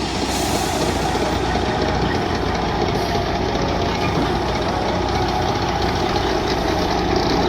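Heavy log truck's diesel engine running steadily while the truck manoeuvres back and forth around a tight bend.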